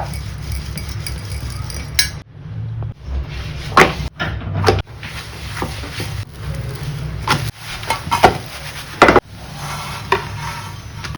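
Metal kitchen utensils clinking and knocking against pans while a paratha is prepared: about seven sharp clinks spread irregularly over a steady low hum.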